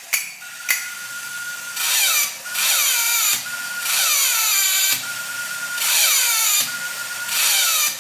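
Cymbal monkey toy running: a last cymbal clap, then a steady high whine alternating with about five loud, harsh bursts that carry falling squeals.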